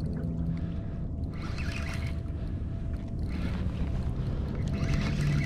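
Wind rumbling on the microphone over open water around a kayak, with a few faint, brief higher sounds coming and going.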